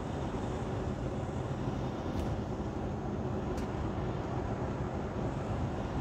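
Steady engine and road noise of a semi-truck driving on the highway, heard inside the cab, with two faint ticks about two and three and a half seconds in.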